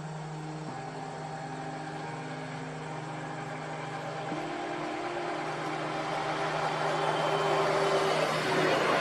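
Motor vehicle engine running, growing steadily louder as it draws near.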